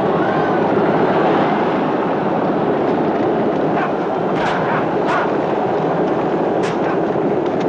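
Chariot race: teams of galloping horses and rumbling chariot wheels make a loud, steady din, with sharp cracks about four and a half, five and nearly seven seconds in.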